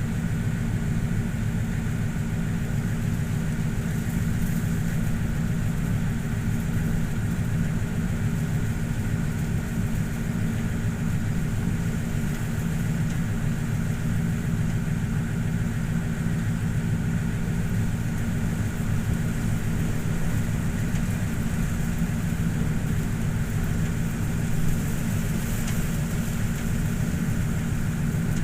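Boat engine, a Schottel-drive vessel's, running steadily with a low, even hum and a faint higher whine.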